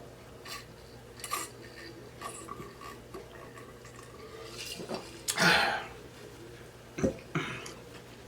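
Handling and unpacking a mailed parcel: scattered light clicks and knocks, a louder half-second scrape about five seconds in and a sharp knock about two seconds later.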